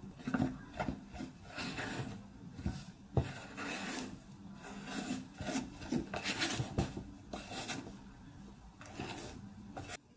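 Silicone spatula folding flour into a whipped egg batter in a glass bowl: repeated, irregular scraping and sweeping strokes against the glass and through the soft batter. The sound stops abruptly shortly before the end.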